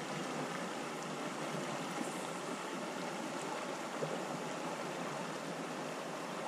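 Steady rush of river water running past a drifting boat.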